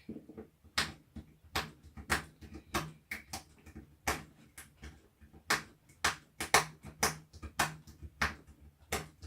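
Short, sharp scraping strokes on the metal end of an 18650 lithium-ion cell, about three a second and irregular: the surface being scratched rough to key it for soldering tabs.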